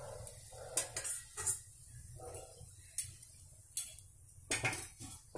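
Metal spoon and wire spider strainer clinking against a steel pot as fried kaja are lifted out of hot oil: about half a dozen sharp, scattered clinks.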